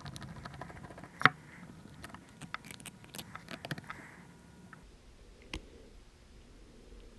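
Scattered small clicks and taps of a chainsaw carburetor and its small metal parts being handled on a workbench, with one sharp click about a second in and a quick run of clicks in the middle.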